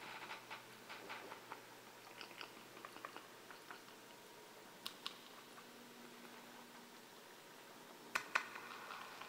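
Chewing and small scattered mouth clicks of someone eating a jelly doughnut, with two sharper clicks close together near the end.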